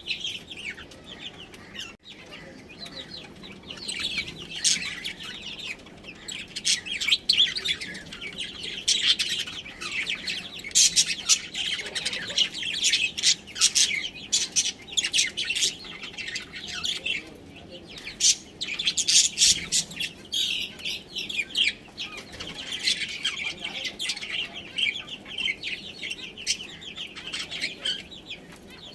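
Budgerigars chirping and chattering continuously, a dense stream of short high chirps that swells and dips throughout.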